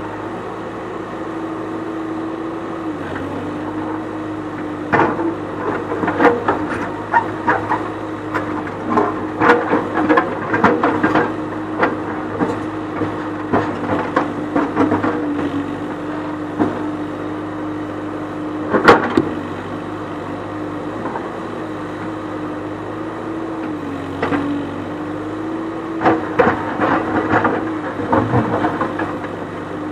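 Backhoe loader's diesel engine running steadily, its pitch sagging briefly under load a couple of times, while the backhoe bucket knocks and scrapes against river boulders in runs of clanks, with one sharp bang about two-thirds of the way through.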